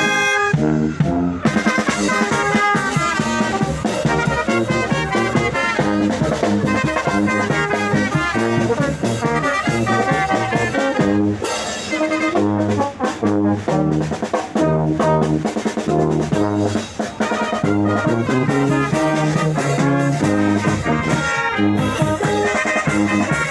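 Marinera norteña played by a brass band, with brass carrying the melody in a steady, lively rhythm.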